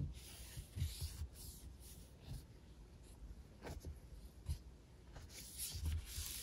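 A wet wipe rubbed across a MacBook Air's screen in short strokes: a series of faint, irregular swishes, with a few soft bumps from the hands on the laptop.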